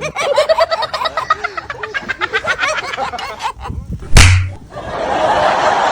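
Rapid, choppy laughing for about three and a half seconds, then a single loud smack about four seconds in, followed by a steady hissing noise.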